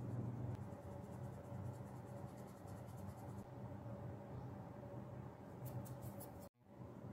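Flour being sifted through a mesh sieve into a glass bowl: a soft, rapid scratching patter. It comes in a run early on and as a few stronger ticks near the end, over a low steady hum, and breaks off for a moment just before the end.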